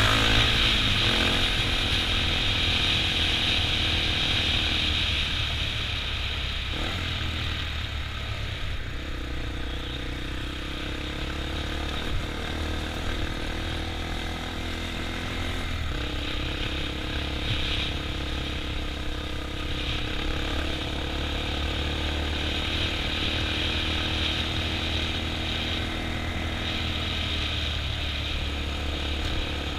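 Sport ATV engine running as the quad is ridden, its pitch rising and falling with the throttle, over a steady rushing hiss.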